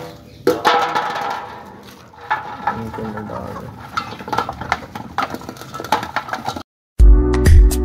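Steel feeding bowl clinking and scraping on concrete, with chickens pecking at the rice in it. The sound cuts off near the end and loud electronic dance music starts.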